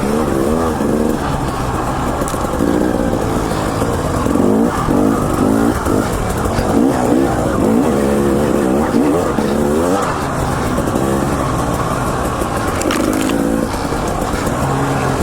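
KTM 300 XC-W TPI's fuel-injected two-stroke single-cylinder engine being ridden off-road, its revs rising and falling again and again as the throttle is worked.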